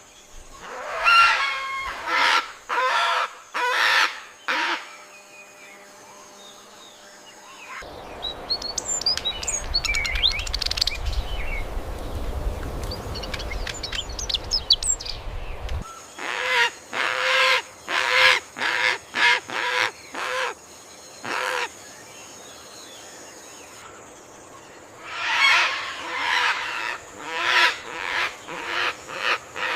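Birds giving series of loud, harsh, repeated calls. For about eight seconds in the middle these stop, and a steady rushing noise with thin high chirps takes their place. The calls then return and run on.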